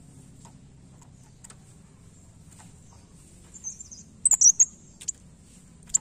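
A caged blerengan songbird giving a short burst of sharp, high-pitched chirps about four seconds in, with faint high ticks and a few single chips before and after.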